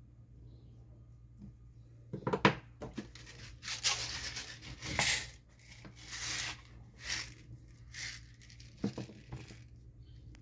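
Paper rustling in a string of short swishes, with a couple of sharp knocks about two seconds in.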